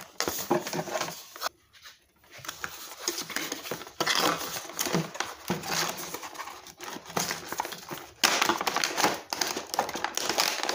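Cardboard box being opened and a clear plastic blister tray slid out of it: irregular rustling, scraping and crinkling of cardboard and plastic packaging, quieter at first and busier from about four seconds in, with a sharp loud crackle about eight seconds in.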